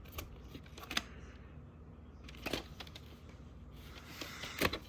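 Handling noise from a VHS tape in its plastic case: a few light clicks and taps, about a second in, about halfway through, and a louder cluster near the end.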